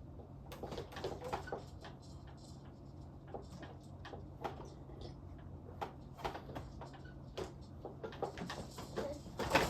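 Irregular light clicks, taps and knocks of small objects being handled, over a steady low hum, with a louder cluster of knocks near the end.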